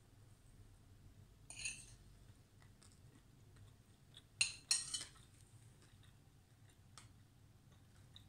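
Metal fork scraping against a ceramic plate while cutting through cake: a short scrape about a second and a half in, then two louder scrapes in quick succession about four and a half seconds in.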